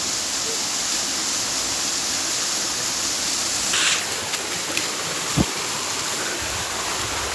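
Waterfall: the steady, even rush of falling water. A single brief knock comes a little past halfway.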